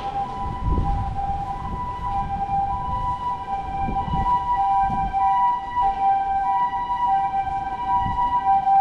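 A steady electronic tone sounding two pitches together, held level without rising or falling, over gusts of wind buffeting the microphone.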